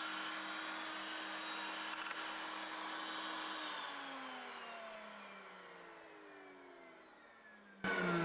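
Router spinning a dovetail bit runs with a steady whine, then is switched off and winds down, its pitch falling over about four seconds. Near the end a louder whir cuts in abruptly.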